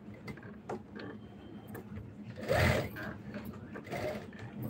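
A steady low mechanical hum, with a brief louder noise about two and a half seconds in.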